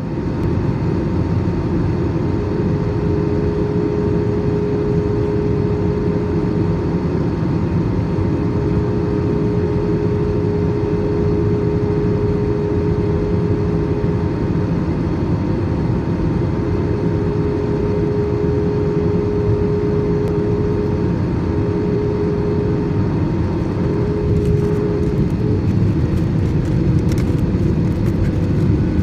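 Airbus A320 cabin noise in flight: a steady rumble of engines and airflow with a steady hum tone that breaks up about three-quarters of the way through. Light clicks or rattles come in over the last few seconds.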